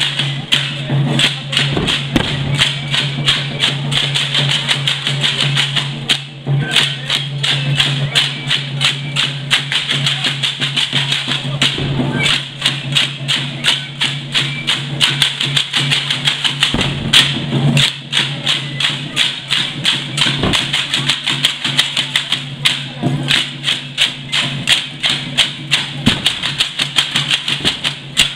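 Drum-and-rattle music of a traditional procession dance troupe: a steady beat about twice a second, thick with the clicking and rattling of the dancers' hand rattles, over a steady low hum.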